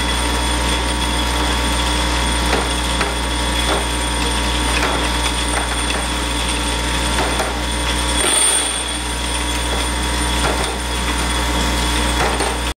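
Vibratory parts feeder for a centerless grinder running: a steady low hum from the vibrating drive with metal pins rattling and clicking as they shake across the table. The hum dips for a couple of seconds past the middle.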